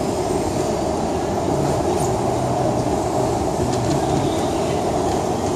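Baggage carousel running with a steady mechanical noise and a few faint clicks.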